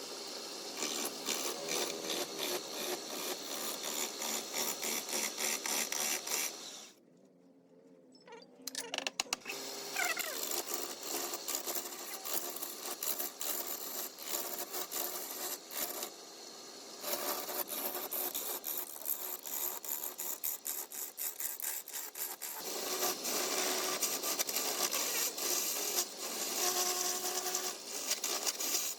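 Woodturning on a lathe: a tool cutting into spinning wood, a dense rapid scraping that stops for a moment about seven seconds in, then goes on.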